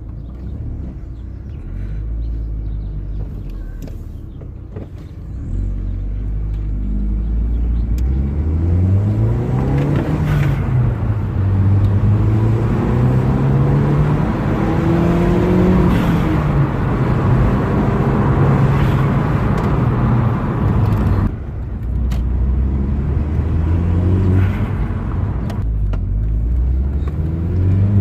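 A turbocharged engine idles, then is revved several times, the revs rising and falling and held high for stretches. As the revs drop, the turbo gives a short sneeze-like whoosh.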